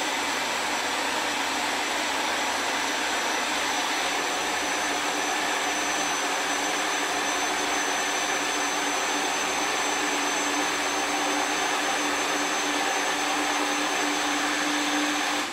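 Princess House Vida Sana personal blender running steadily as it blends a smoothie in its cup, a loud motor noise with a steady hum and a high whine. It cuts off at the very end.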